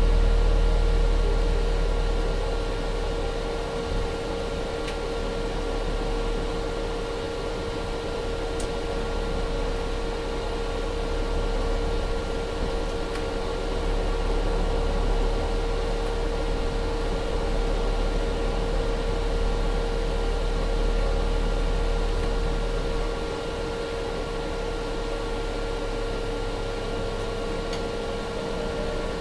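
MAN Lion's City 12C Efficient Hybrid diesel mild-hybrid city bus running steadily: a constant mid-pitched hum with fan-like whirring over a low rumble, the rumble easing a little after about four seconds.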